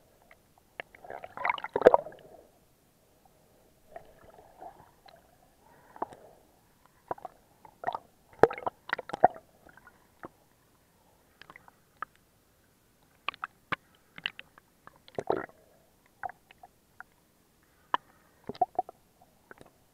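Muffled water and handling noise picked up by an underwater camera while snorkeling: irregular clicks, knocks and short swishes of moving water, with stronger splashy bursts about two seconds in and again near the middle.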